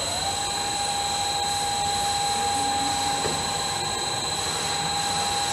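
Motor of a Macc S-391 A automatic metal-cutting band saw running at a steady pitch, just after it has spun up to speed, with a faint high electrical whine over an even machine noise.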